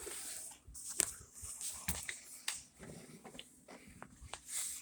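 Scattered sharp clicks and light rustling: handling noise as things are moved about close to the microphone.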